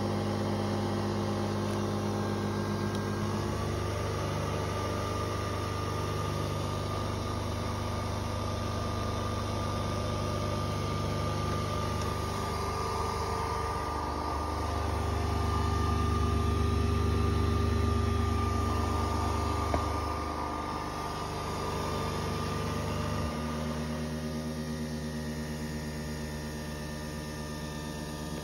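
Nespresso Vertuo Plus coffee machine running a brew cycle: a steady motor and pump hum with a higher whine over it. The hum shifts about three seconds in and drops to a lighter sound about 23 seconds in.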